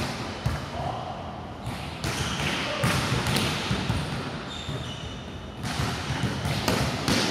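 Balls bouncing repeatedly on a hard court floor, many irregular overlapping thumps.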